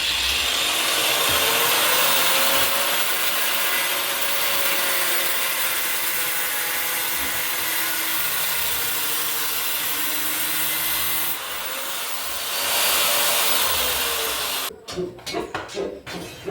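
Angle grinder with a cut-off disc cutting through a metal rod: the motor winds up at the start, runs under load with a brief easing about three-quarters of the way through, then spins down and stops near the end.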